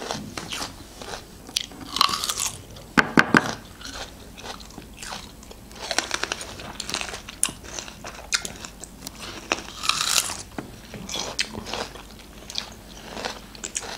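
Two people biting into and chewing crisp unripe green cherry plums (alcha), with irregular crunches throughout.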